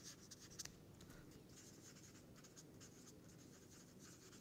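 Marker pen writing on paper: faint, quick scratchy strokes as letters are drawn, with one slightly sharper stroke a little over half a second in.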